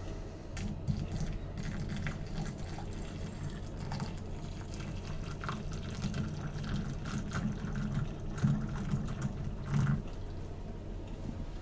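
Water pouring from a kettle into a plastic infuser basket in a glass teapot: a steady filling splash that starts just under a second in and stops about ten seconds in.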